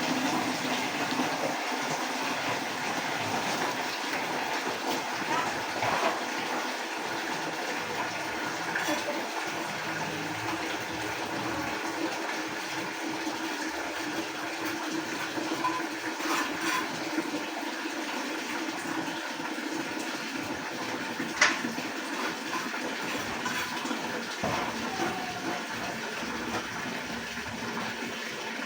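Water running steadily, as into a container filling up, with a few light knocks, one sharper about two-thirds of the way through.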